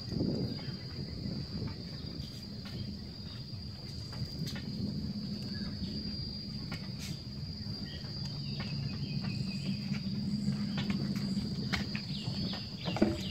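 Insects in mangrove greenery droning with one steady, high-pitched buzz, over a low background rumble. A few faint clicks and short high chirps come in the latter half.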